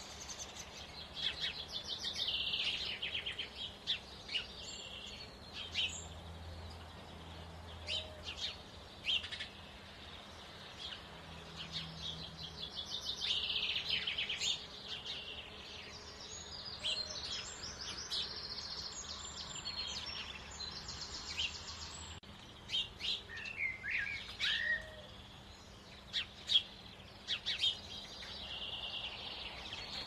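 Small garden songbirds singing and calling: high, rapid trilled phrases in bursts, with short chirps in between.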